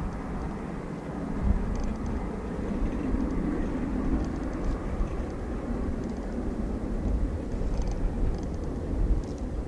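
Jet engines of a Boeing 767 rumbling as the airliner moves along the runway, a steady low noise that swells a little after the first second or so.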